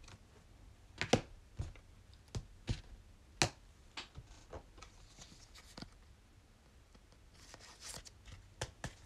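Trading cards being handled: a scattered run of light taps and snaps of card stock as cards are flicked through and set down, with a soft papery rustle near the end.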